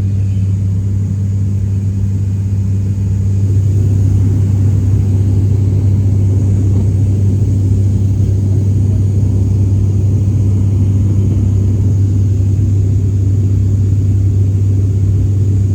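Airliner cabin noise during the climb after takeoff: the aircraft's engines and airflow make a steady, loud, low drone that grows slightly louder about four seconds in.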